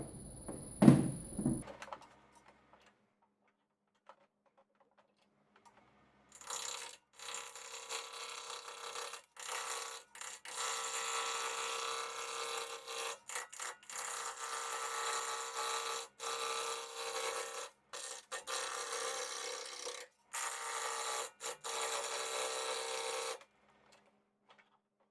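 Woodturning tool cutting into a spinning alder blank on a lathe: a steady hiss that runs in stretches from about six seconds in, broken by several brief stops, and ends a couple of seconds before the end. A single loud knock comes about a second in.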